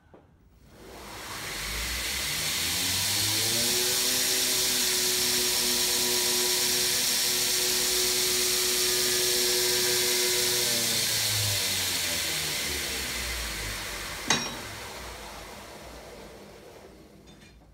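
Homemade 2x72 belt grinder's DC treadmill motor switched on, ramping up in pitch over a few seconds to its set speed and running steadily with belt noise, then winding down as it coasts to a stop. A single sharp click comes about three quarters of the way through.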